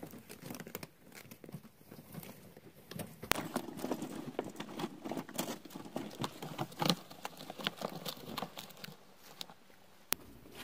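Crumpled packing paper crinkling and rustling under a ferret moving across it, a run of irregular small clicks and taps with a sharper snap about three seconds in and another near the end.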